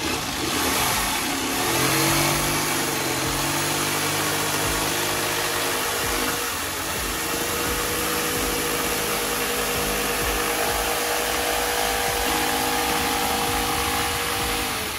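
Corded electric jigsaw cutting through a plywood board, its motor running continuously with the blade sawing steadily.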